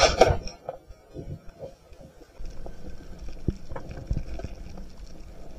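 Band-powered speargun fired underwater: a sharp crack as the rubber bands release and the shaft leaves, right at the start. Scattered knocks and clicks follow over a low rumble of water noise.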